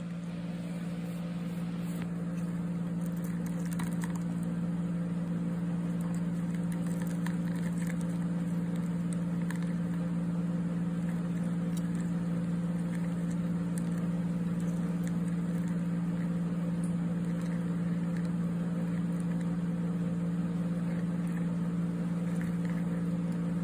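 Steady low electric hum of a motor or appliance, unchanging in pitch, with a few faint scattered light ticks over it.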